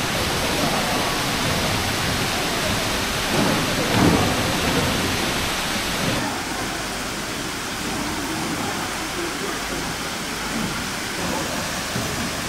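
Steady rushing-water noise, loud and even, with a low thump about four seconds in.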